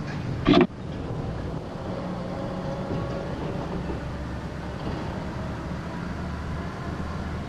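A loud knock or clatter about half a second in, then a steady low rumble with a faint hum.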